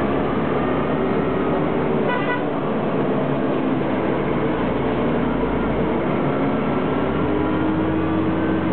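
Coach bus heard from inside the cabin: the engine running loud with road noise on a winding mountain road, and the bus horn giving one short toot about two seconds in, the kind of honk the driver sounds at blind bends to warn oncoming traffic.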